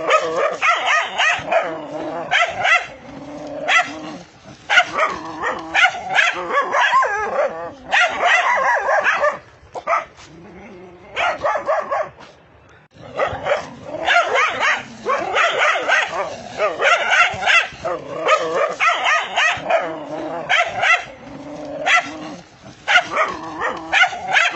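Dogs barking angrily in repeated bursts, with a quieter lull about ten seconds in before the barking resumes.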